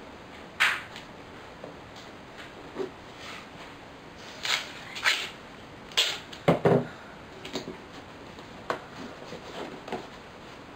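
Black gaffer tape being pulled off the roll and torn in several short ripping bursts, the loudest tear coming about six and a half seconds in, with light handling of a cardboard box in between.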